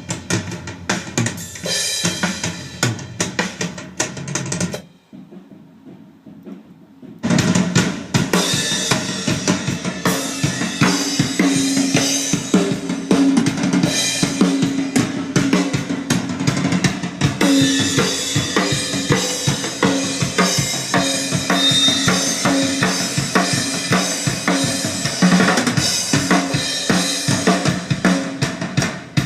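Mapex drum kit played during a sound check, bass drum and snare hits. The playing drops away about five seconds in and comes back dense and steady about two seconds later.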